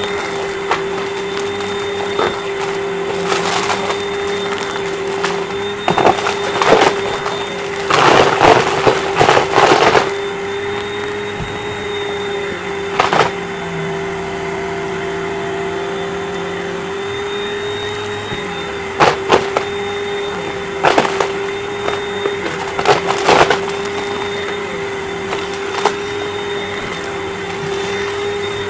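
Vacuum cleaner running with a steady motor whine, sucking up confetti and small debris from the carpet, which rattles and crackles through it in bursts, the longest and loudest run about a quarter of the way in.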